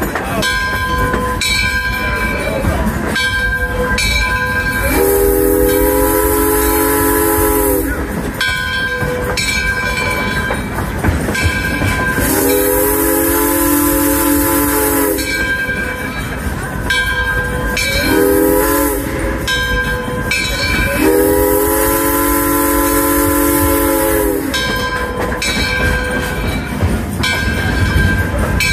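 Alco #18 steam locomotive's chime whistle blowing the grade-crossing signal: two long blasts, one short, then one long, each blast a chord with a hiss of steam. The train's running noise continues underneath.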